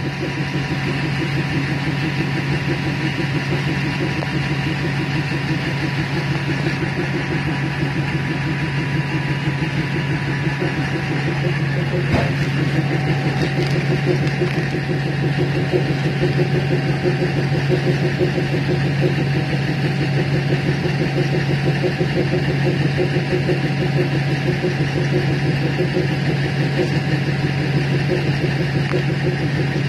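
Diesel engine of a DEMU passenger train running steadily, heard from inside the driving cab, with an even low hum that grows slightly louder about halfway through.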